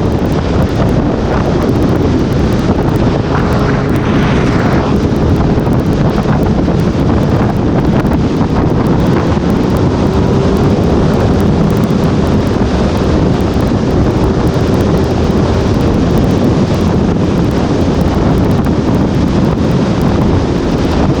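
Heavy wind buffeting on a GoPro Hero5 action camera's microphone during a Honda CB1000R motorcycle ride. It is steady and loud, with a faint engine hum beneath it.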